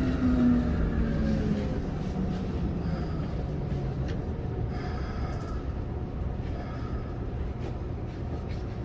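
Keikyu 1500-series field-chopper electric train heard from inside the car, braking into a station. The traction motor and gear whine falls in pitch over the first four seconds or so, then gives way to a low, steady rumble as the train slows toward a stop.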